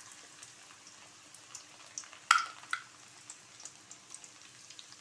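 Aloo bhujia dough strands frying in hot oil in a kadai on a low flame: a steady sizzle with scattered small crackles and pops. Two sharper clicks stand out about half a second apart near the middle.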